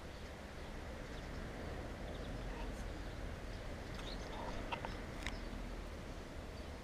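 Steady low outdoor background rumble, with a few brief high chirps and two or three sharp clicks about four to five seconds in.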